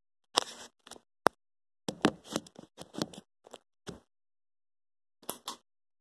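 A run of short clicks and knocks with dead silence between them, the sharpest a single click about a second in, and a cluster of them in the middle.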